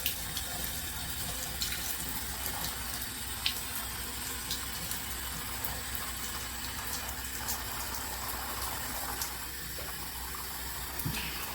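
Shower water running steadily from a faulty handheld shower head: the water escapes from the wrong place instead of spraying from the head's face.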